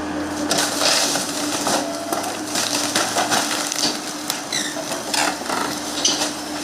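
Heavy demolition machinery tearing down a wood-frame house: a steady engine hum under repeated cracking and crunching of splintering wood and debris.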